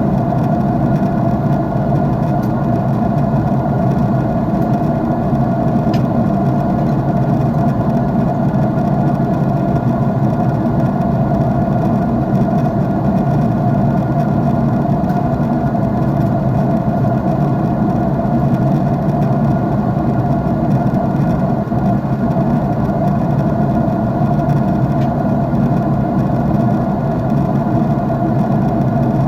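Steady drone of an airliner's jet engines heard inside the cabin at cruise, an even rushing hum with a few faint steady tones in it and no change in pitch or level.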